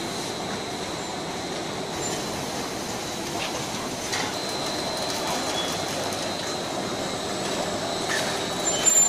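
Rock wool sandwich panel production line running: a steady mechanical rumble of motors, rollers and conveyor, with a thin high whine over it and a few light knocks. A short high squeal comes near the end.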